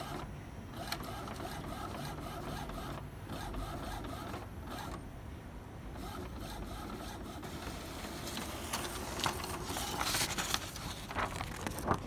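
Epson M200 monochrome inkjet printer printing a page. A steady mechanical whirring of the print mechanism and paper feed, with a few short louder swishes, mostly near the end as the sheet comes out.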